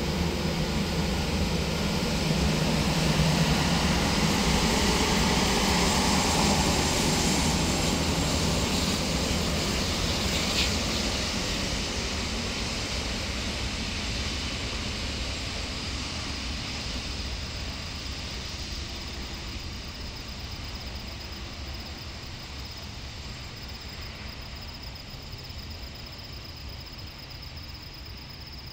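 Airbus A330neo's Rolls-Royce Trent 7000 turbofans running as the airliner rolls down the runway after landing: a loud jet rumble and hiss that peaks a few seconds in, then fades steadily as the aircraft moves away.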